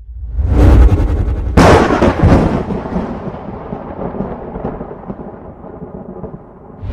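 A deep boom sound effect: a short rising swell, then a sharp hit about a second and a half in that rumbles and dies away slowly over the following five seconds.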